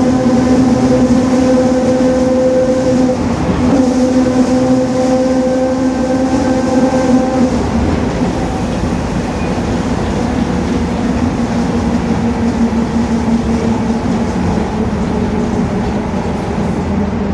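City bus's rear differential whining at highway speed, a steady gear whine over road and engine rumble. The whine weakens about halfway through, leaving mostly the rumble.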